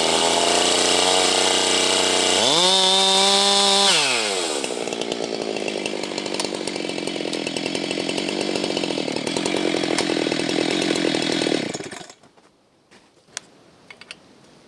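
Husqvarna 390XP two-stroke chainsaw with a 37-inch bar held at full throttle, rising to a steady high whine. About four seconds in the pitch drops as the chain bites into the wood, and it saws on under load, rougher and lower, until it cuts off suddenly near the end.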